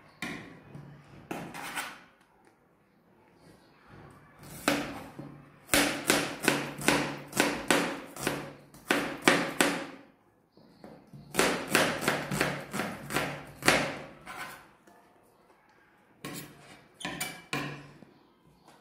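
Kitchen knife chopping vegetables on a plastic cutting board: several runs of quick knife strikes, about three to four a second, with short pauses between runs.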